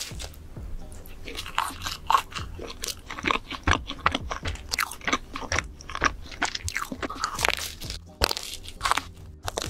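Close-miked ASMR eating: big bites into a frosted donut with a crunchy red crumble topping, then chewing with many small crunches and wet mouth sounds. There is a loud bite at the start and another a little past eight seconds in.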